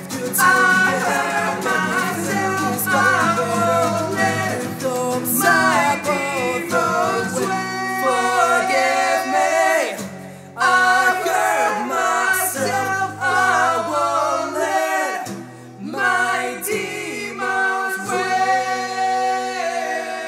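Acoustic rock band playing: several voices singing in harmony over two strummed steel-string acoustic guitars. The parts settle onto held notes near the end.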